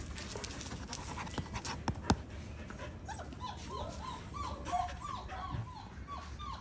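Wolfdog puppy (grey wolf × German Shepherd hybrid, about a month old) whimpering: from about halfway, a run of many short, high whines that each bend downward, two or three a second. A few sharp knocks come in the first two seconds.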